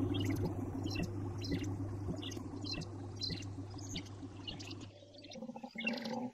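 Water pouring and splashing, with many small irregular splashes over a steady low hum. The sound thins and changes about five seconds in.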